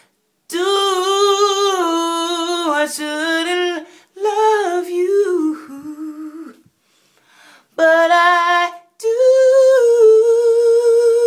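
A woman singing a cappella without words, in four drawn-out melodic phrases with vibrato and short breaks between them. The last phrase is a long, higher held note.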